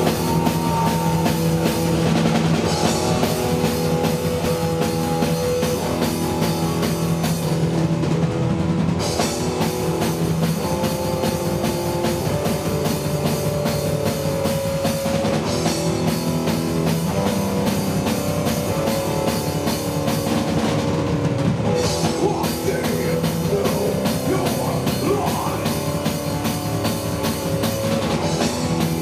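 Live rock music: an electric guitar plays a melody of long held notes over a full drum kit, at a steady loud level.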